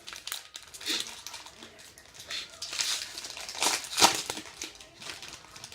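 Foil wrapper of a baseball card pack crinkling and tearing as it is opened by hand, in several rustling bursts with one sharp, loud crinkle about four seconds in.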